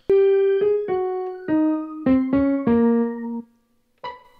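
Yamaha PSS-A50 mini keyboard played through an Electro-Harmonix B9 Organ Machine pedal, the organ tone laid over the keyboard's own sound. It plays a descending run of seven notes, the last one held, then a single short note near the end.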